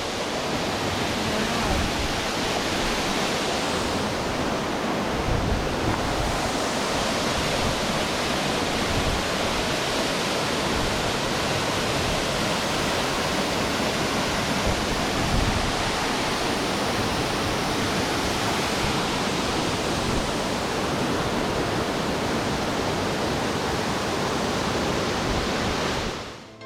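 Waterfall cascading over rock: a loud, steady rush of falling water.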